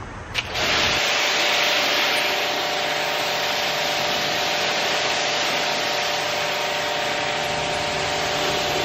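Kranzle 1122TST electric pressure washer rinsing a car through a 40-degree nozzle: a steady hiss of water spraying onto the paint and glass, with the washer's motor hum beneath. It starts about half a second in.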